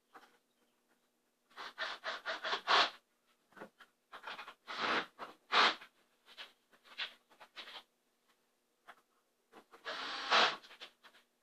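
Short scraping and rustling noises mixed with light clicks, in three bunches, from a cabinet door panel being handled and fitted onto a pull-down spice rack unit. The loudest bunch comes near the end.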